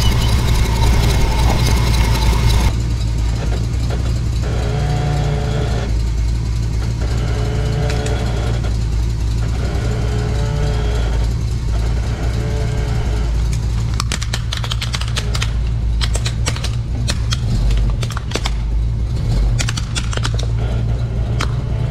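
Truck engine running with a low, steady hum. From about two-thirds of the way in, a quick run of sharp cracks and snaps: hard plastic breaking as the tyre rolls onto a toy ATV and crushes it.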